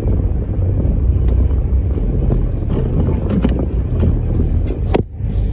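Vehicle engine running under load in a tow attempt to pull a car out of a snowy ditch, a steady low rumble with wind on the microphone. A sharp knock comes about five seconds in.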